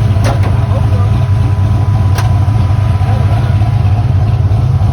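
Chevy's Blueprint crate engine running with a steady deep drone; two short clicks sound in the first couple of seconds.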